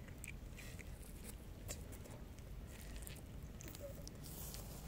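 A cat crunching dry kibble: faint, irregular crisp clicks of chewing over a low background rumble.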